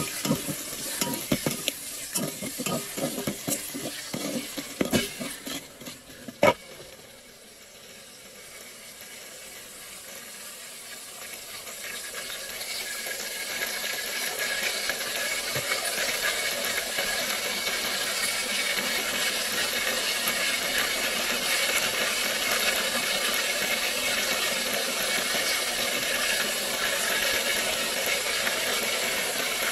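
A spoon stirring food in a cooking pot, with a run of knocks against the pot and one louder knock about six seconds in. Then a steady frying sizzle that builds over several seconds and holds.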